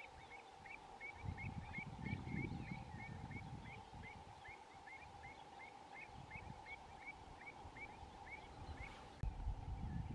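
Common shelduck ducklings peeping: a steady series of short, high peeps, about three a second, stopping about nine seconds in. Wind rumbles on the microphone in two gusts.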